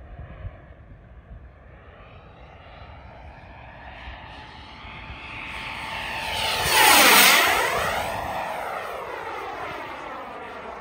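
Turbine engine of a radio-controlled HSD F-16 model jet (a 105 mm ducted-fan model converted to turbine) making a low pass. Its whine builds to a loud peak about seven seconds in, then drops in pitch and fades as the jet moves away.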